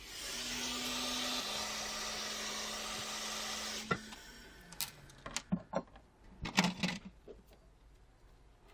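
Hot air blower running: a steady rushing hiss with a low hum that drops slightly in pitch about a second and a half in, then cuts off suddenly about four seconds in. It is heating the phone's internals. Several small clicks and taps of hand tools follow.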